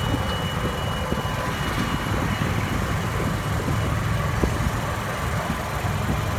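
A motor vehicle running steadily: a low engine hum under a broad rushing noise, with a faint thin whine during the first two seconds.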